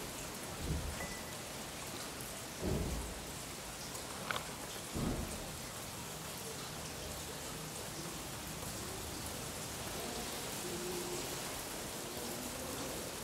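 Steady hiss of rain falling, with three short low thumps in the first five seconds and a sharp click about four seconds in.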